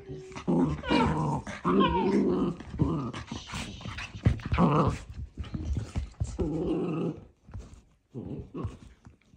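Miniature dachshunds growling and grumbling in rough play, in several bursts, with fabric rustling in between; it dies away near the end.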